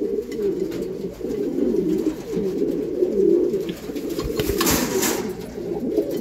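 Domestic pigeons cooing continuously, several calls overlapping. A short rustling burst comes about four and a half seconds in.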